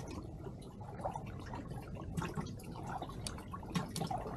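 Small water sounds of dripping and lapping against a kayak hull, with scattered light clicks and taps.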